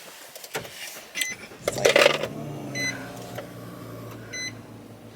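Car engine cranked and started about two seconds in, then idling steadily, after a couple of clicks. A dashboard warning chime beeps about every second and a half over the idle.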